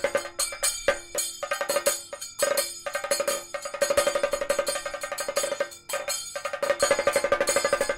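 Temple festival percussion: fast, dense drum strokes over a steady held note, broken by several abrupt cuts.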